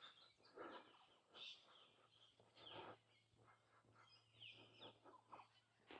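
Near silence with faint, scattered bird chirps and short falling whistles.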